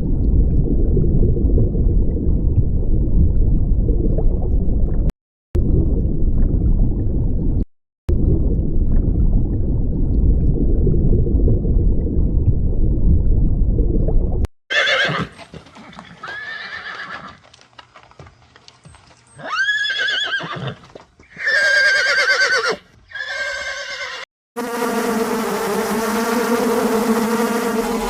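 A loud, low, noisy rumble, cut off twice for a moment, gives way about halfway through to an animal calling several times in high calls that fall in pitch. Near the end a steady droning tone starts.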